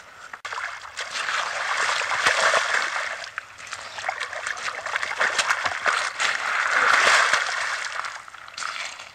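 A large northern pike thrashing and splashing in shallow water at the shore as it is released. The splashing comes in two louder bouts, a couple of seconds in and again near the end.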